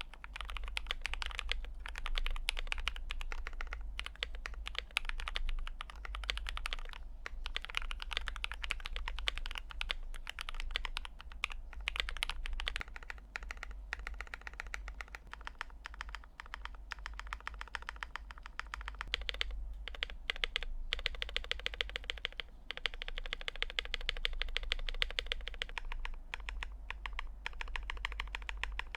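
Continuous fast typing on an Idobao ID67 mechanical keyboard with Akko Rose Red linear switches, GMK keycaps, case foam and retuned stabilizers: a dense run of keystroke clicks with a few brief pauses, over a steady low hum.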